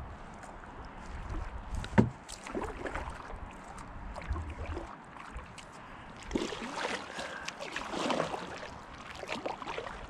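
Canoe paddle strokes in calm water: irregular swishing and dripping of the blade, with a single sharp knock about two seconds in and busier swishing in the second half.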